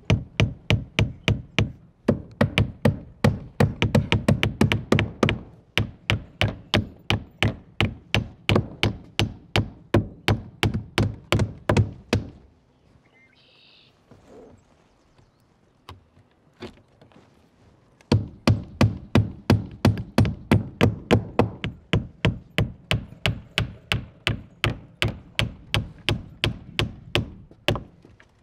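Claw hammers driving nails through the slots of a window's nailing flange into the wall: fast runs of sharp strikes, about four a second, with two hammers going at times. The hammering stops for several seconds midway, then starts again.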